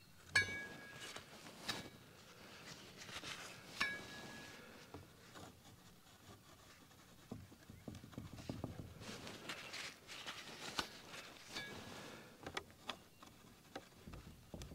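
Steel palette knife scraping and dabbing paint across a canvas on an easel, with scattered scratchy strokes and sharp clicks, the loudest about half a second and four seconds in.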